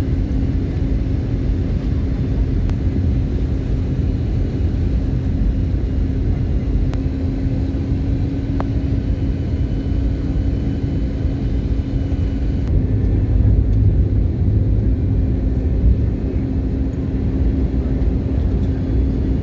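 Airliner cabin noise just after landing: a steady low rumble of the engines and rolling aircraft, with a constant hum over it. About two-thirds of the way through the hiss fades and the rumble swells briefly.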